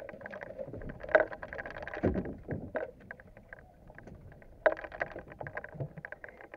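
Knocks, clicks and rattles aboard a small boat drifting with its outboard off, as gear is moved about in the bottom of the boat, with two sharper knocks about a second in and just before five seconds in.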